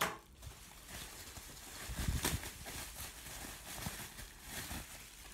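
Bubble wrap rustling and crinkling as hands pull it open and slide a small cardboard box out, with a few soft thumps about two seconds in.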